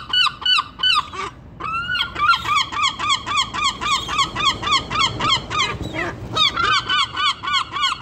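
Two adult herring gulls calling for food in a fast, steady series of loud yelping calls, about four a second, with short breaks about a second in and about six seconds in.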